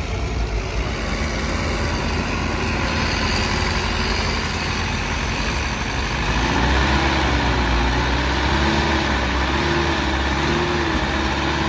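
Sonalika DI 60 diesel tractor engine running steadily while hauling a soil-laden trolley, with a strong low rumble. From about halfway, a wavering tone rises and falls over the engine.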